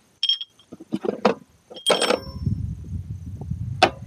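Metal spacer brackets clinking and clanking against the tractor's front toolbox mount as they are worked into place by hand, with a louder ringing clank about two seconds in. It gives way to a low scraping as the spacers slide into the mount, and a single sharp knock near the end.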